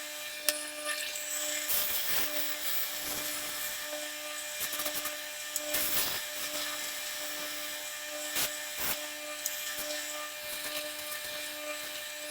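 A power tool running steadily in a woodworking shop: an even whirring hum that pulses gently, with a few knocks and clicks scattered through it.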